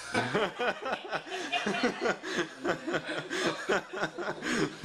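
Laughter: quick repeated laughing pulses, following on without a break.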